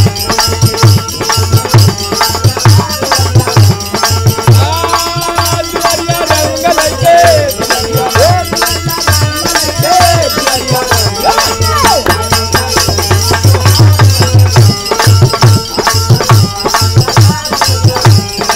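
Instrumental interlude of a Bhojpuri birha ensemble: a dholak beats a fast steady rhythm under held harmonium chords and the constant jingle of hand-held jingle clappers and a tambourine.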